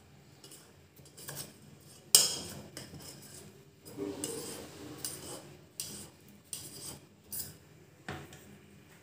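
Knife scraping and clinking against the inside wall of a stainless steel pot as it is run around the edge of a cake to loosen it, with a sharp metal clink about two seconds in and lighter clicks and scrapes after.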